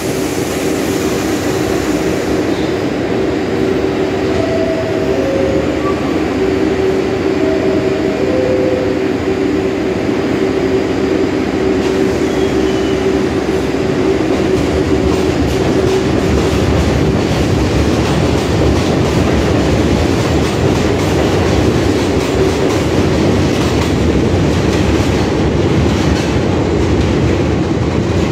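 R62A subway train on an elevated platform closing up and pulling out: a two-note chime sounds twice about five and eight seconds in, then the train accelerates away with a steady hum and wheels clacking over the rail joints, growing slightly louder about halfway through.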